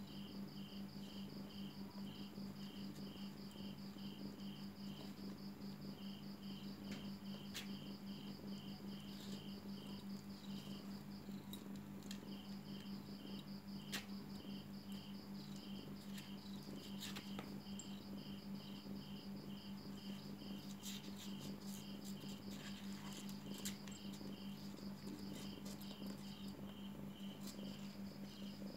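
Insects chirping in an even, rapid pulsing rhythm at two high pitches, over a steady low hum, with a few faint clicks.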